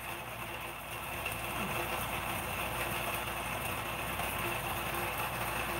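Steady mechanical hum with a faint constant high tone running under it.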